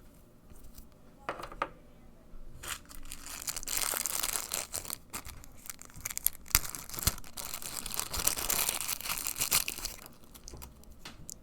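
Keyboard packaging being unwrapped: a couple of light clicks, then about seven seconds of crinkling and tearing, with two sharp taps near the middle.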